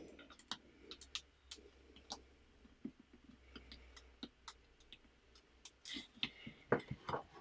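Faint clicks and taps of small plastic LEGO pieces being handled and pressed onto a plate, with a louder cluster of clicks near the end.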